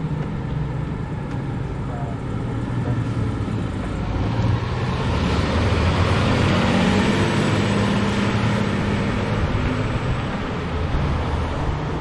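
Sutphen Monarch fire engine driving past with its diesel engine running and tyre noise: it swells as the truck approaches, is loudest about six to seven seconds in as it passes, then fades as it pulls away. No siren is sounding.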